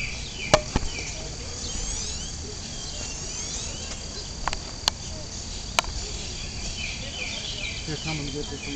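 Steady high-pitched insect trilling with short bird chirps repeating over it, broken by a few sharp clicks.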